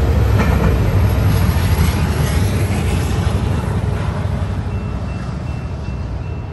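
A pair of BNSF diesel locomotives trailing a coal train: a deep engine rumble with a few wheel clicks near the start, fading slowly as they pull away.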